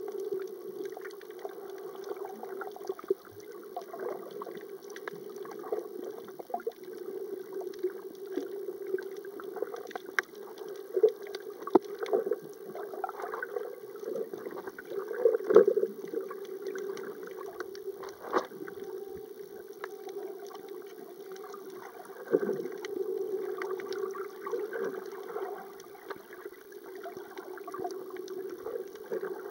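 Muffled water noise picked up by a camera held underwater: a steady low hum with many small clicks and crackles, and a few louder swells of water movement.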